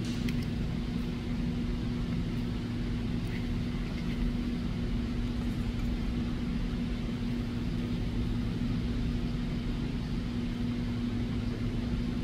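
Steady low mechanical hum with a constant droning tone, from background machinery or ventilation in the room. A few faint light clicks ride on it as a small screwdriver works the thermostat's terminal screws.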